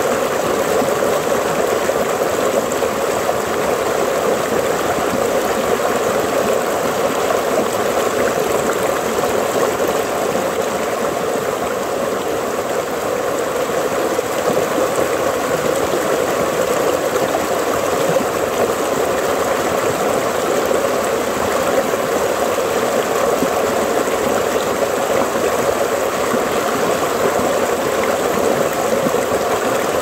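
River stream flowing and trickling in a steady, unbroken rush of water.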